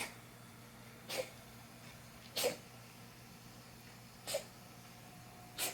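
A domestic cat coughing: five short, dry, forceful hacks about one to two seconds apart. The owner wonders whether the coughing is asthma or a hairball.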